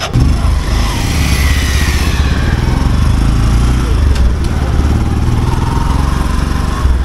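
Motorcycle engine running steadily at low speed as the bike rides along, a constant low hum.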